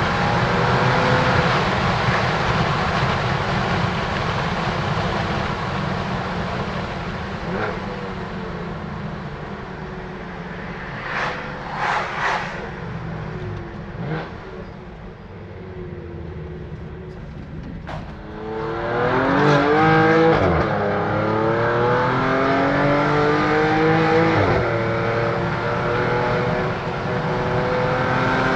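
BMW F80 M3's twin-turbo inline-six with a catless M Performance exhaust, driven hard. It runs loud, eases off into a quieter coast with a few sharp pops, then about two-thirds of the way in it pulls hard with rising revs, with an upshift drop in pitch twice.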